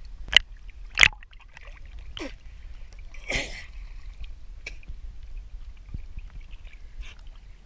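Seawater slapping and splashing against a camera floating at the surface, with two sharp slaps in the first second and a longer splash near the middle, over small lapping sounds.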